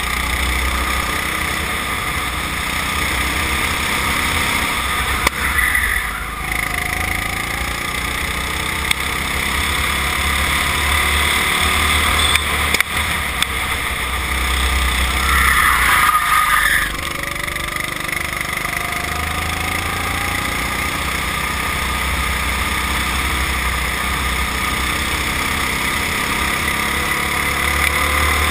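Go-kart engine running at racing speed, heard from on board the kart, its pitch sliding down and back up through the corners, with wind rumbling on the microphone.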